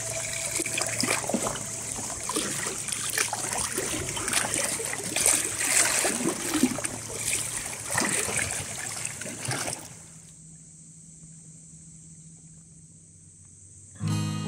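Shallow seawater washing and trickling over a flat shore rock, with many small splashes and spatters as the ripples run across it. It cuts off suddenly about ten seconds in, leaving a faint steady hum, and music begins right at the end.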